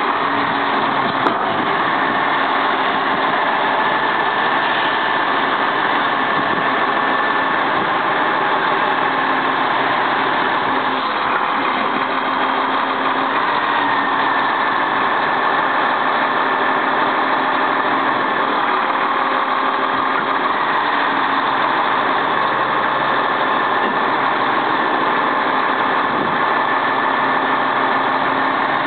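Freightliner plow truck's diesel engine idling steadily, with a high whine that shifts in pitch a couple of times and a single sharp click about a second in.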